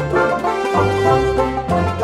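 Background music with pitched notes over a bass line that changes every half second or so.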